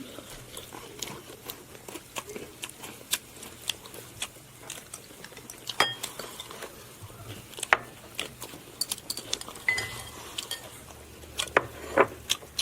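Tableware clinking at a meal: dishes, bowls and utensils knocked and scraped, in many scattered, irregular short clicks.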